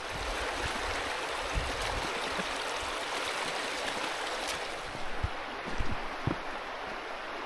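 Shallow mountain river running over stones, a steady rush of water, with a few soft low thumps.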